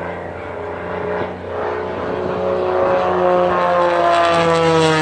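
Engine of a propeller-driven aerobatic plane, its drone getting louder while its pitch slides steadily downward.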